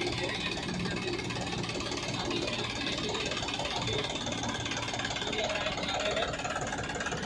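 Powertrac 439 Power House tractor's diesel engine idling steadily.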